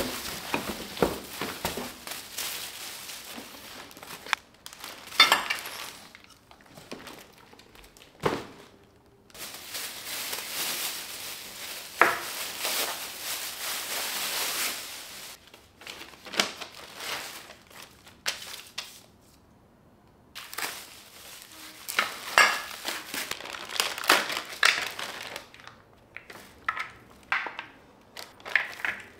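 Plastic wrapping crinkling and being pulled off office-chair parts, with cardboard box handling, and knocks of the plastic parts against a tiled floor. A long spell of continuous crinkling comes in the middle, and a run of short sharp clicks and knocks near the end as the casters are fitted to the chair base.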